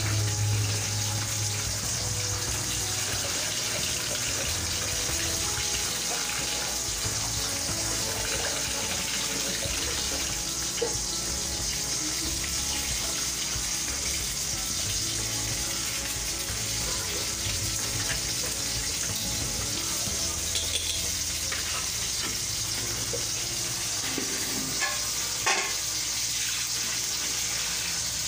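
Water sloshing and splashing in an enamel basin as hands wash and squeeze shredded bamboo shoots, with a few short knocks, one near the middle and two close together near the end.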